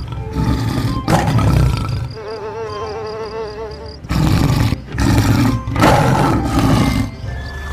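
Tiger roar sound effects, several loud roars in a row, with a wavering tone between them and light background music.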